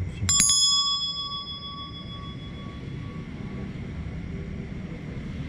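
Metal hand bell shaken, its clapper striking a few times in quick succession about a third of a second in. The bell then rings on with a high, bright tone that fades away over about three seconds.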